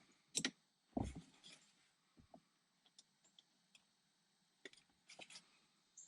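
Faint, scattered clicks and knocks of a wrench and metal parts being handled, with one heavier knock about a second in.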